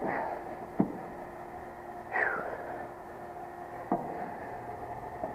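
Compressor sound blanket being handled inside an outdoor heat pump cabinet: rustling and scraping of the jacket with two short falling squeaks, and two sharp knocks, about a second in and near four seconds in, over a steady faint hum.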